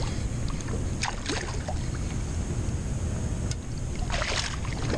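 Wind buffeting the microphone over a steady low rumble of water moving around a small inflatable kayak, with a few short splashy bursts about a second in and again around four seconds.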